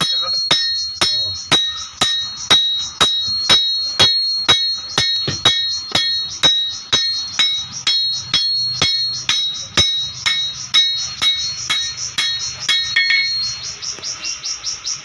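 Hand hammer forging a sword blade of leaf spring steel on an anvil: a steady run of sharp blows, several a second, each with a bright metallic ring, stopping about a second before the end. Insects chirr throughout in a fast, high pulsing rhythm.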